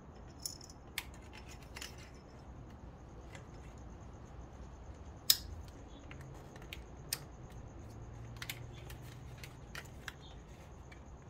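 Scattered light clicks and taps of rubber hoses and plastic quick-connect fittings being handled and pushed into place on an engine, with one sharper click a little over five seconds in.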